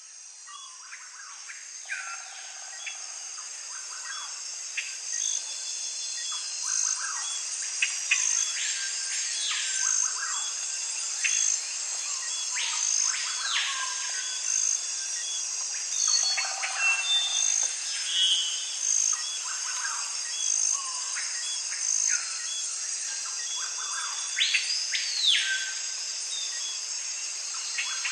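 Nature ambience: a steady, high insect chorus with a regular pulse about once a second, and birds calling with whistled notes that rise and fall. It fades in over the first several seconds.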